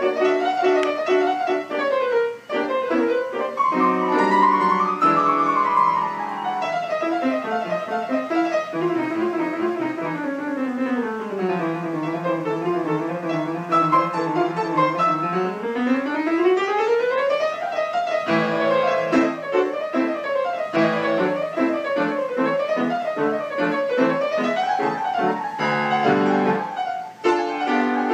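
Instrumental music, a keyboard-like melody of wavering tones. Partway through, the melody slides slowly down in pitch and then climbs back up.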